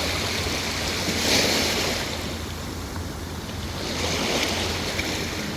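Ocean surf breaking and washing on the shore, surging twice, with wind rumbling on the microphone underneath.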